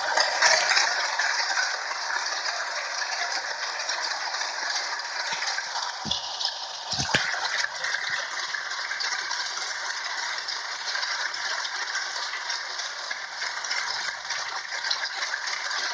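A large studio audience applauding steadily, many hands clapping at once, a little louder in the first second. Two dull thumps come through about six and seven seconds in.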